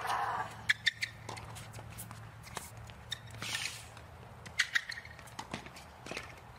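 Tennis rally on a hard court: a string of sharp pops from racket strikes and ball bounces, with a few short sneaker squeaks on the court surface.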